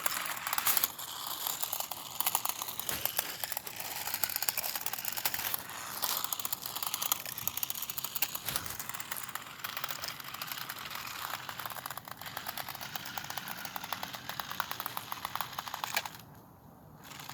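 Radio-controlled toy car driving, its small electric motor and gears whirring with a fast, dense clicking rattle that rises and falls; the sound drops away briefly near the end.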